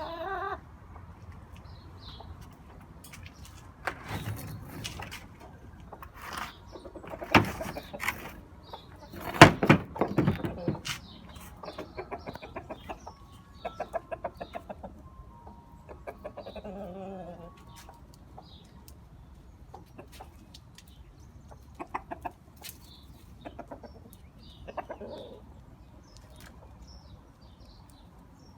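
A hen clucking softly at intervals, with a run of louder sharp thumps and rustles about a third of the way in.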